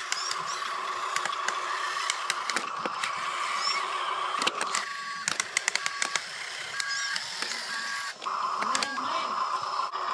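Huina RC dump truck's electric drive motor and gearbox whining as the truck crawls over loose dirt, with scattered clicks and crackles from the wheels and clods. From about five seconds in the steady whine breaks into short, regularly spaced two-tone beeps.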